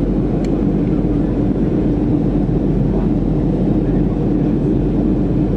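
Steady cabin noise inside a Boeing 737-500 in flight: an even drone of airflow and its CFM56-3 engines with a constant low hum.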